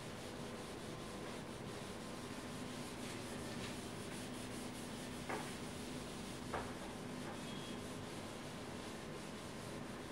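A board duster rubbing back and forth in quick strokes across a writing board, wiping it clean. Two short knocks sound about five and six and a half seconds in.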